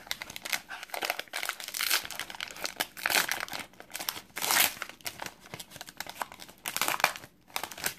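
Wrapper of a 2017 Panini Prestige football card pack crinkling and tearing as it is pulled open by hand, in irregular crackles, loudest about three and four and a half seconds in.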